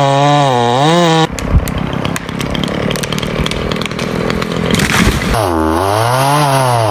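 Chainsaw running at high revs, then bogging into wood with a rough, rattling cutting sound for about four seconds, then revving up and dropping back once near the end.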